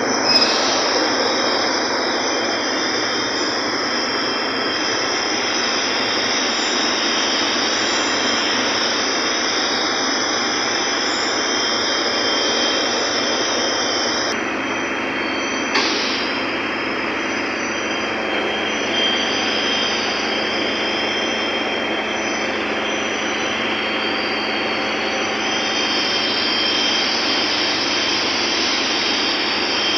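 Ship's engine-room machinery running: a steady, loud din of engines and auxiliary machinery with a high hiss over it. Two brief knocks, one near the start and one about halfway through.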